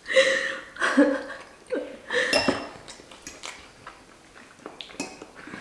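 Metal forks clinking and scraping against ceramic bowls while pasta is eaten, along with mouth sounds of eating. The louder sounds come in the first two and a half seconds, followed by scattered light clicks.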